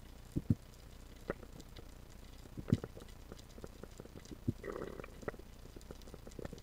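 Underwater ambience: a low hiss broken by irregular sharp clicks and knocks, with a short gurgling rush about five seconds in.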